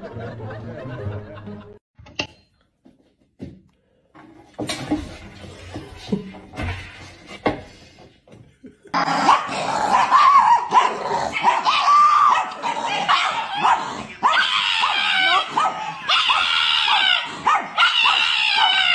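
Small dogs barking and yipping. The calls are loud and almost continuous from about halfway through; before that there are only scattered faint knocks.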